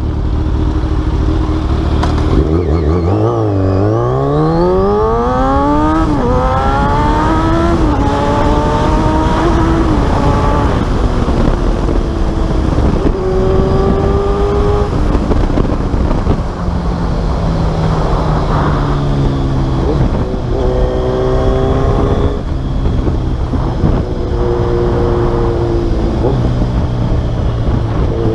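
Kawasaki Z1000's inline-four engine through a full aftermarket exhaust system, revving up from about two and a half seconds in with the pitch climbing steeply, then rising and dropping back several times with steady stretches between, as when accelerating through the gears and cruising.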